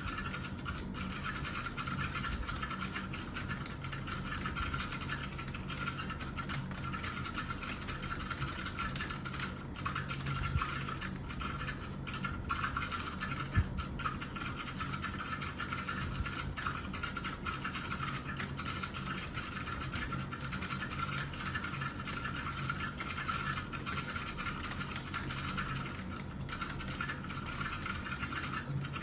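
Continuous fast typing on a computer keyboard: a dense, even stream of key clicks, over a steady low hum.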